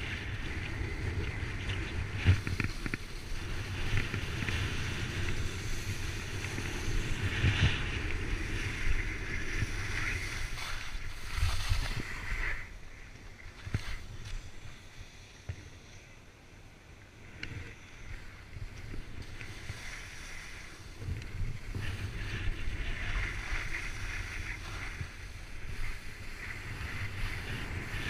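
Skis sliding and scraping over snow during a fast run, with wind rushing over the camera microphone. The sound drops away for several seconds midway, then comes back up.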